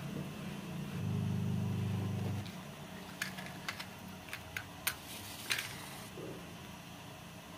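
A low steady hum, loudest for about a second and a half near the start and then dropping away. Then a run of sharp clicks, about eight over two and a half seconds, from a handheld lighter being struck until it lights a candle inside a tin can.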